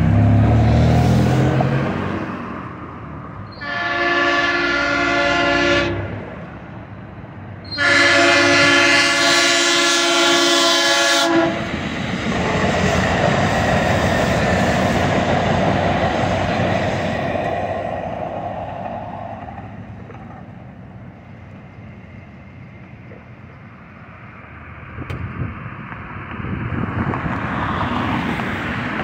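A DART light rail train's horn sounds two blasts, a shorter one about 2 s long and then a longer one of about 3.5 s. Before the blasts a road vehicle goes by with a low rumble, and after them the train runs through the crossing with a steady rail noise that fades out.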